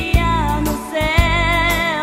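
A woman singing a gospel hymn with vibrato over a band accompaniment with a steady bass line and regular drum hits; one sung phrase ends about halfway through and the next begins.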